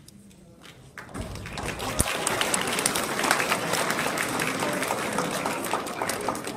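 An audience of schoolchildren applauding in a gym, the clapping starting about a second in and growing into a dense, steady applause. A single thump sounds about two seconds in.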